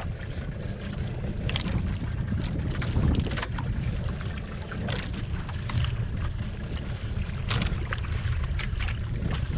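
Wind rumbling steadily on the microphone over open sea, with irregular short splashes and ticks of water against the outrigger boat.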